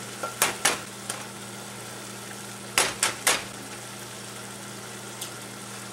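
Eggs cracked against the rim of a saucepan, one after the other: a cluster of three sharp taps about half a second in and another three near the three-second mark. Under them the corned beef stew sizzles steadily in the pot.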